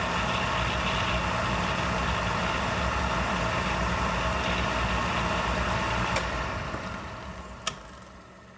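Oil burner motor and fuel pump of a Peerless WV-05 oil furnace running steadily, primed from the reset button to purge air from the fuel line after it ran dry. About six seconds in it shuts off and winds down over a couple of seconds, with a sharp click as it starts to fade and another near the end.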